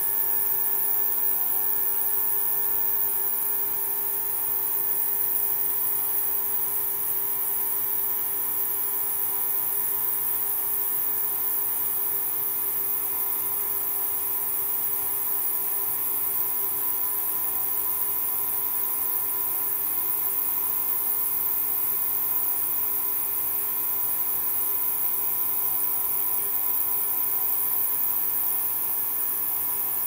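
Ultrasonic cleaning bath running: a steady electrical hum with several constant tones under a high hiss, unchanging throughout.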